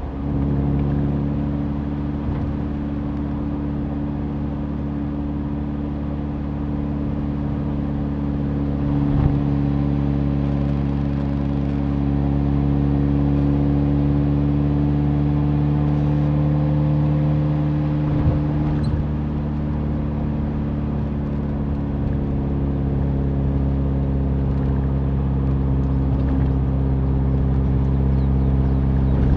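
Mazda Roadster's four-cylinder engine running steadily at cruising speed, with tyre and road noise underneath. The engine note rises gently and settles back a little past the middle.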